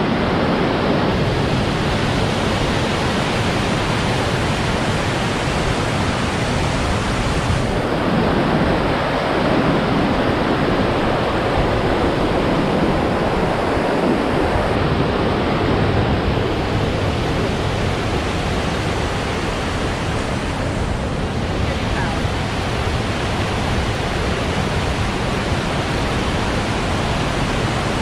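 Mekong River cascades rushing over rock ledges: a steady, loud rush of white water.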